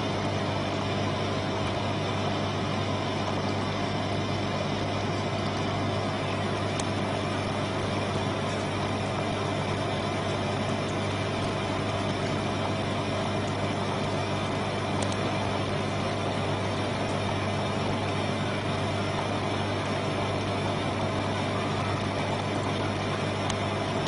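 Steady mechanical hum: a constant low drone with a few held tones above it and an even hiss.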